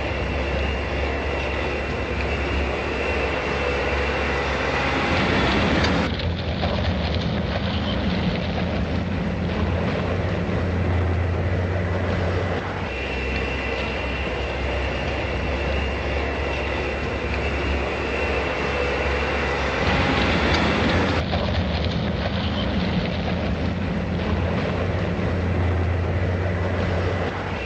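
Steady rumbling noise with a faint high steady tone above it, one stretch repeating about every fifteen seconds like a looped background track.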